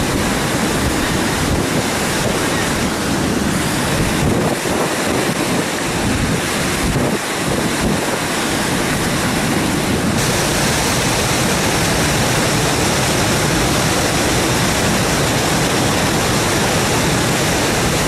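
A rain-swollen waterfall, muddy floodwater rushing steadily down over rocks, with wind on the microphone. The rush changes tone slightly about halfway through.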